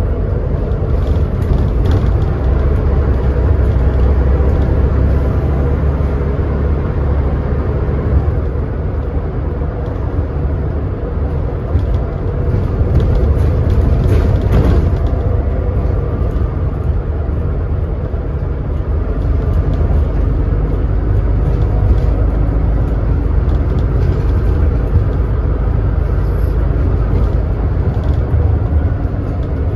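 Scania N94UD bus under way, its engine and ZF Ecomat automatic gearbox running with a steady low rumble and a faint whine.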